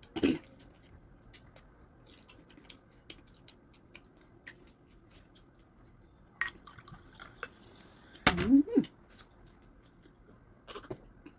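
Close-up eating sounds while feeding on shrimp: wet chewing and lip smacks, with many small scattered clicks. There is a short louder sound right at the start and another about eight seconds in.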